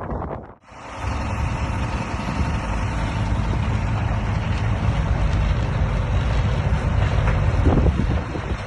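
A motor vehicle running with a steady low engine drone and road noise, starting after a brief dropout about half a second in.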